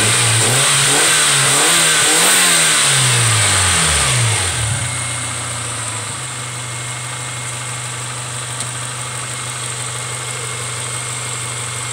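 1995 Honda Prelude's four-cylinder engine revved in a series of quick throttle blips, then dropping back to a steady idle about four and a half seconds in.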